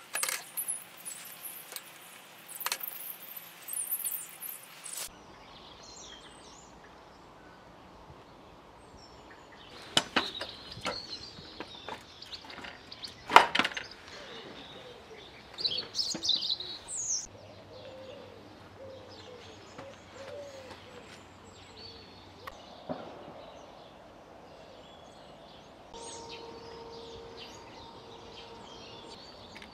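Small metal tiller parts being handled and fitted by hand: scattered clicks and knocks, the sharpest about thirteen seconds in, with a rustle of handling in the first few seconds. Birds chirp now and then in the background.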